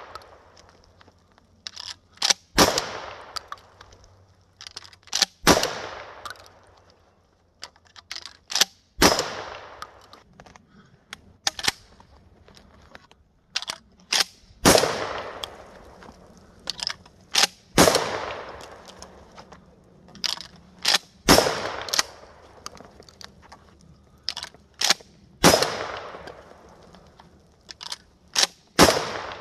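Pump-action shotgun fired about seven times, a loud shot every three to four seconds, each trailing off in a short echo. Between shots come clusters of smaller clacks from the pump being worked and shells being loaded.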